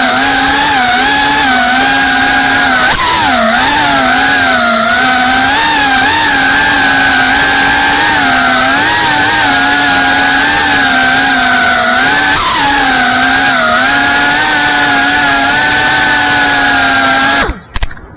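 FPV freestyle quadcopter's electric motors and propellers whining loudly, the pitch wobbling up and down with the throttle. The sound cuts off suddenly near the end.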